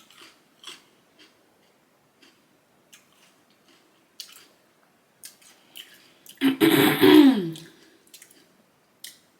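Close-miked chewing and wet mouth clicks of a person eating, in short scattered bursts. About six and a half seconds in, a louder voiced sound from the eater falls in pitch over a second or so.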